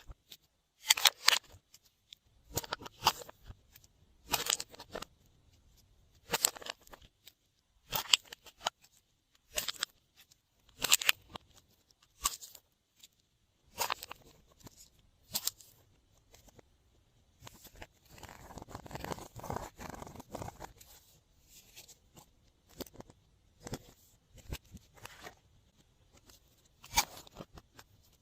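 Glossy slime being worked by hand, making sharp sticky clicks and pops about every one and a half seconds, with a longer spell of continuous squishing about two-thirds of the way through.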